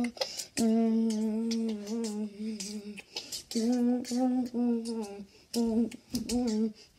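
A child humming a simple tune in long held notes, in three phrases with short pauses between them.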